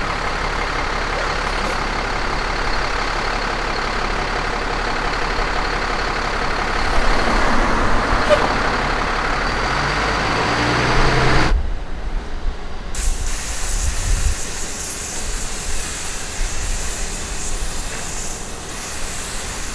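Road traffic with a large vehicle's engine running close by, slightly louder toward the middle. About eleven and a half seconds in, the sound changes abruptly to a quieter, hissier street background.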